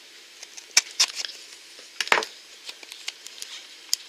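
Fingers and long nails handling a small cardboard toy box, giving a few scattered light clicks and taps, the loudest about two seconds in.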